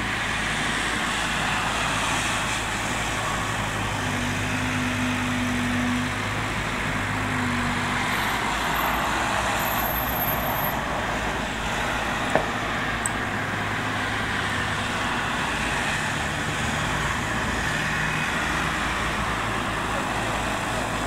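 Bobcat 331 mini excavator's diesel engine running steadily while it digs, with the rush of cars passing on the road. A higher steady tone comes in twice in the first several seconds, and there is one sharp knock about halfway through.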